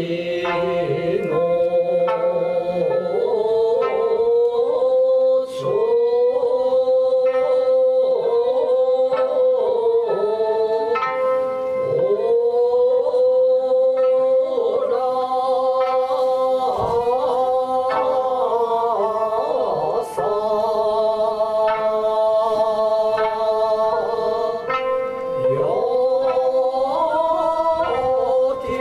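Ryukyuan classical music: a singer's slow, long-held vocal lines that slide between notes, sung over plucked sanshin.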